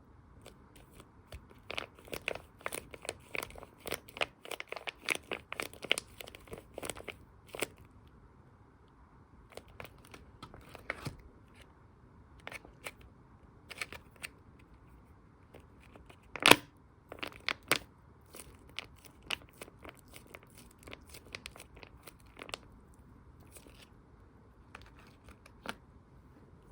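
Squishy toys being squeezed and handled, a run of crinkling and crackling clicks, dense for the first several seconds, then sparser, with one loud sharp click about two-thirds of the way through.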